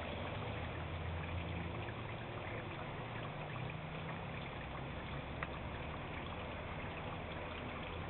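Steady rain falling, an even rushing patter, with a low hum underneath that swells and fades slightly.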